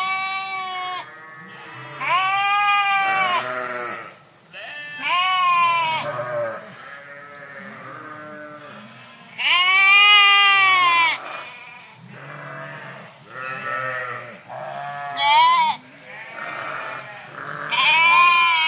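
A flock of sheep bleating, several animals calling one after another and overlapping, some high-pitched and some lower, each bleat lasting about a second; the loudest call comes about ten seconds in.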